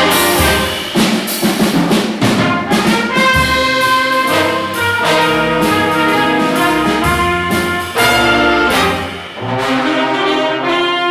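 A band of trumpets, trombones and saxophones playing a jazz arrangement in sustained, shifting chords.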